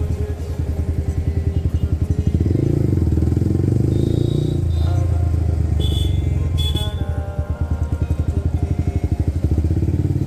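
Motorcycle engine running while riding, its level rising and easing back, with two short high beeps about six seconds in.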